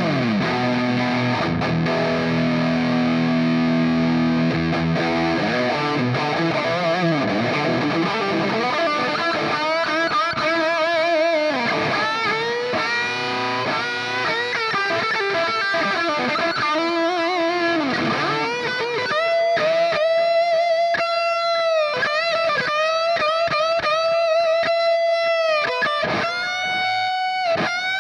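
Electric guitar played through a NUX MG-30 multi-effects processor with a distorted tone. It opens with a held chord, then plays a lead melody with string bends and vibrato.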